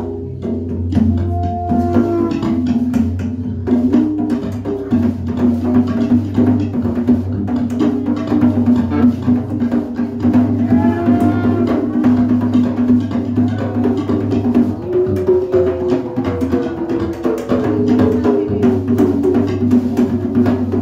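Live trance band playing: hand-struck drums in a quick, busy rhythm over a steady droning synthesizer and bass, with wavering melody lines above.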